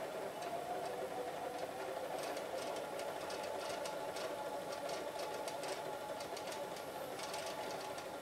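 Cassette mechanism of a Sears SR 2100 series boombox fast-forwarding a tape: a steady motor whir with faint ticking.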